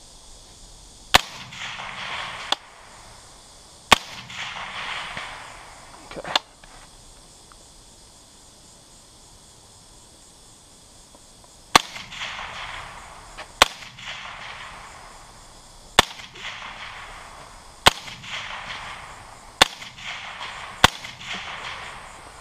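LWRC semi-automatic rifle fired about ten times in slow, spaced single shots, each shot followed by about a second of echo. There is a pause of about five seconds after the fourth shot.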